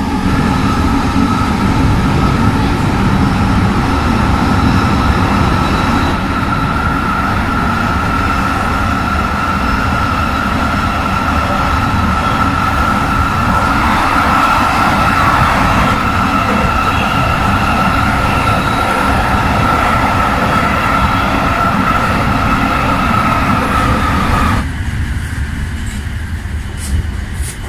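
Kelana Jaya Line LRT train heard from inside the car, running with a loud, steady rumble and a steady high whine. About 24 seconds in the whine cuts off and the noise drops as the train slows into a station.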